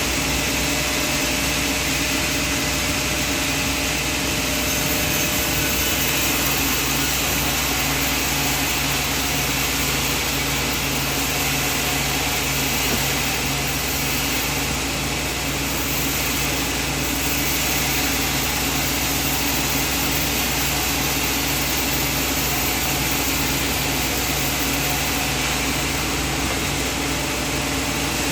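Sawmill machinery running steadily: a constant, even machine noise with a low hum and a broad hiss, with no pauses or changes.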